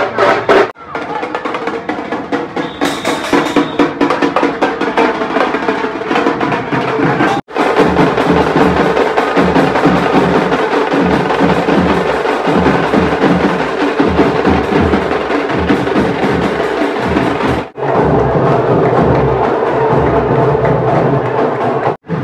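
A group of drums beaten with sticks, playing a fast, driving rhythm. The sound cuts out for an instant twice, where the recording is joined.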